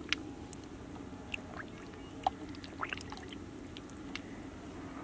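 Faint wet clicks and small pops from catfish stirring in a shallow muddy puddle, with a faint steady low hum underneath.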